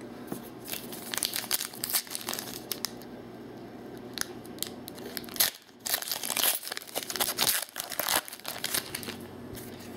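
Foil wrapper of a trading-card pack being torn open and crinkled by hand: irregular crackling, busiest from about one to three seconds in and again from about six to eight seconds in.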